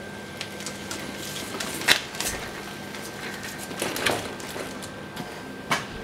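Belt-driven robot platform powered by two washing-machine motors rolling away over concrete: scattered knocks and rattles, the loudest about two seconds in, over a faint steady hum.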